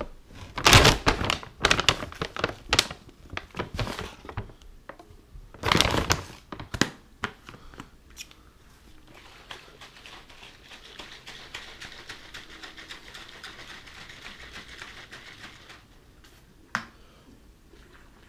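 Handling noise: a quick run of knocks, taps and clicks as objects are moved about, busiest in the first few seconds. A faint steady hiss follows, then one sharp click near the end.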